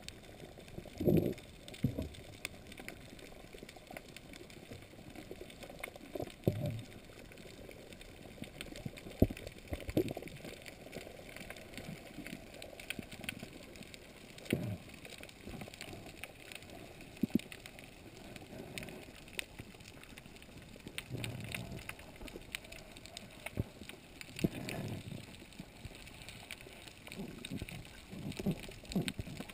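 Underwater sound picked up by a camera in a waterproof housing: irregular low whooshing surges of water every few seconds, a few sharp knocks, over a faint steady crackle.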